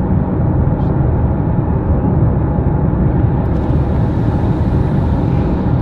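Car noise: a loud, steady, unbroken low rumble.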